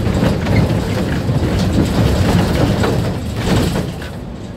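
Mercedes-Benz Citaro C2 city bus under way, heard from inside the cabin: a steady low engine and road rumble with frequent rattles and knocks. It eases off somewhat near the end.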